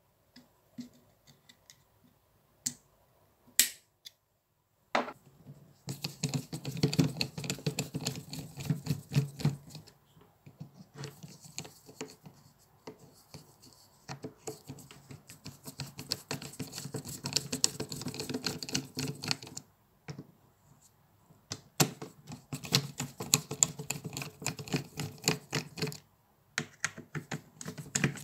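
A screwdriver backing out the screws of a Makita impact driver's plastic housing: long bursts of rapid clicking and scraping with short pauses between. A few sharp separate clicks come first, as the motor's brush holders are handled.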